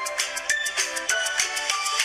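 Background music: a light, upbeat tune of short melodic notes over a quick, steady shaker-like beat.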